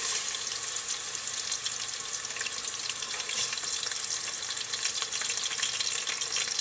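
Chunks of raw pork (chicharrón) frying in hot oil in a metal pot: a steady sizzle with fine crackling throughout, the pieces just added to the heated oil.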